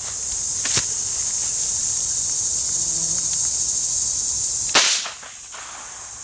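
A single sharp .22 LR handgun shot a little under five seconds in, the loudest sound, over a steady high buzz of insects; a smaller sharp click comes just under a second in.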